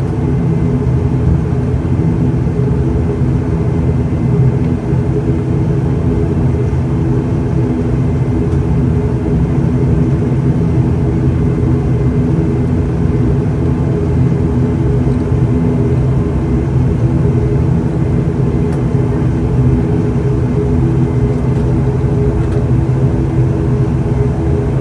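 ATR-72 turboprop engine and propeller running steadily as the aircraft taxis after landing, heard inside the cabin beside the engine: an even hum of several held tones over a low rumble.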